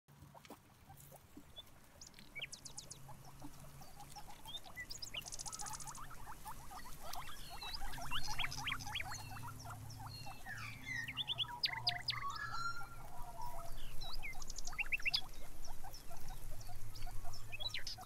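Small birds chirping and twittering in short quick notes, mixed with rapid little clicks and squeaks that fit guinea pigs chewing grass close by, over a steady low hum; the chirping and clicking are busiest in the middle stretch.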